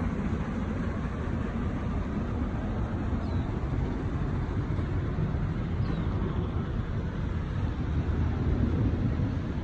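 Outdoor background noise: a steady low rumble with no distinct events.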